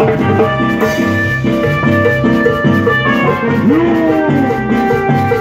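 Live band playing an instrumental Latin dance tune: an electronic keyboard carries the melody over electric bass and drums with a steady beat, and there is a pitch-bend slide a little past the middle.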